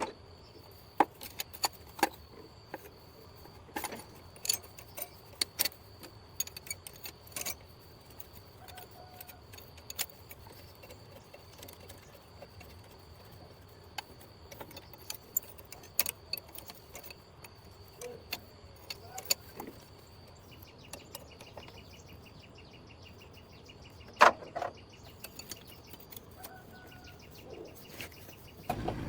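Scattered sharp clinks and knocks of metal tools and parts being handled, the loudest about three quarters of the way through, with a rapid even ticking for a few seconds shortly before it.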